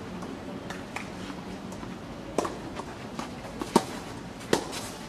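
Tennis rackets striking the ball in a doubles rally: three sharp pocks in the second half, the gaps shortening from about a second and a half to under a second, with fainter taps before them.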